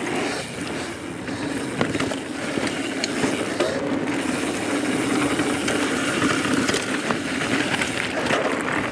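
Mountain bike rolling fast down a dry dirt singletrack: steady tyre and wind noise, with a few light clicks and rattles from the bike.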